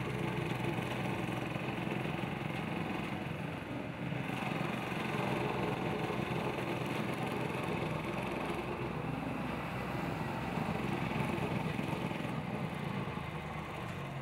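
A vibratory plate compactor's engine running steadily as it tamps sand in a trench, with a tractor pulling a hay rake driving close past in the second half, when the engine noise is a little louder.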